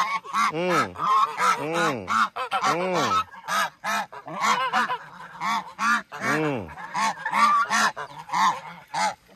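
Domestic geese honking over and over, call after call, each honk rising and falling in pitch, with short sharp clicks in between.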